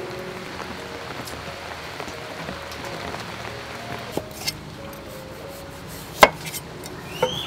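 Steady rain-like hiss under soft background music. A few sharp knocks come in the second half, the loudest about six seconds in, from a kitchen knife striking a wooden cutting board while peeling a breadfruit.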